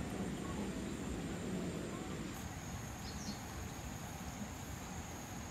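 Outdoor ambience: a steady high insect whine over low background noise, with a short bird chirp about three seconds in.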